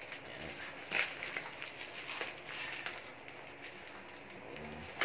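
Plastic parcel packaging being handled and opened: irregular crinkling and crackling with scattered sharp clicks, the sharpest about a second in.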